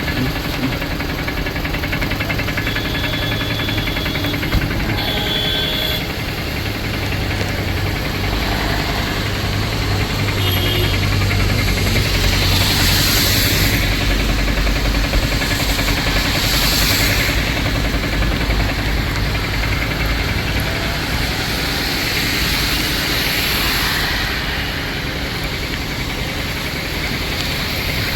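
Steady rain with road traffic on wet streets: a low engine rumble throughout, and vehicles hissing past about halfway through.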